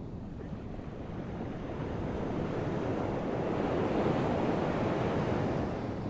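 Atlantic ocean surf breaking on a sandy beach: a steady rush of waves that swells to a peak in the middle and eases off near the end.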